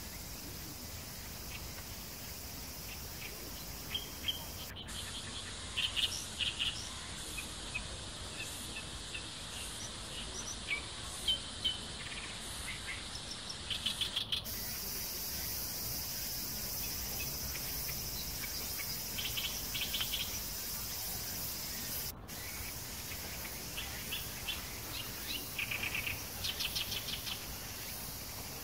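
Insects droning steadily with birds chirping in short bursts. The background shifts abruptly a few times where clips are joined.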